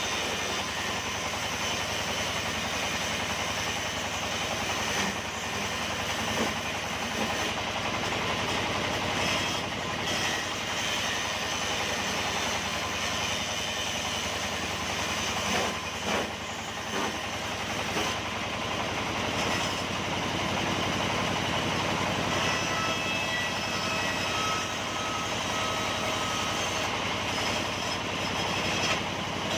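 Sawmill machinery running steadily, with a few knocks along the way. Thin whining tones join in during the last several seconds.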